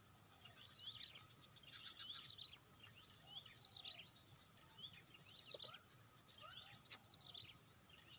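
Small birds chirping in short, repeated calls over a steady high-pitched insect drone.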